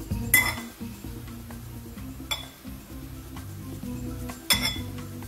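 A metal fork clinking against a glass bowl three times, about two seconds apart, over background music.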